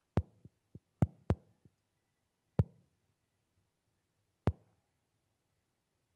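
Sharp clicks and knocks from handling things at a lectern: a quick cluster of several in the first second and a half, then single knocks about two and a half and four and a half seconds in.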